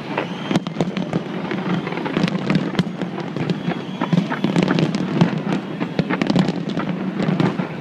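Large fireworks display going off continuously: a rapid, unbroken stream of crackling pops and bangs, many per second.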